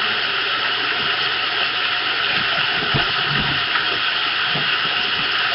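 Recorded rainfall from Rainymood.com playing steadily and loudly, an even hiss of heavy rain, with a few faint low thuds about halfway through.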